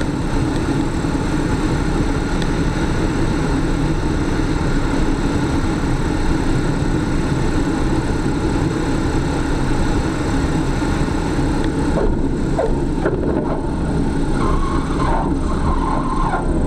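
Steady vehicle noise, a continuous rumble and hiss, with a few faint brief wavering tones near the end.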